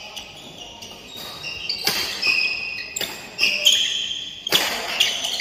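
Badminton doubles rally: sharp racket strikes on the shuttlecock, a few about a second apart, with short high squeaks of shoes on the court floor between them, ringing in a large hall.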